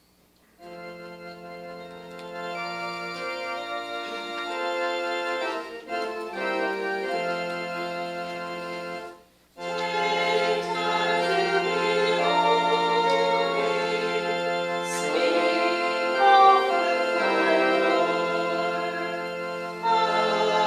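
Organ playing a hymn in slow held chords, stopping briefly about nine seconds in, then starting again louder with a congregation singing along.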